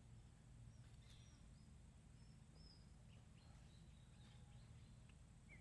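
Near silence, with a few faint, short bird chirps scattered through it over a low steady rumble.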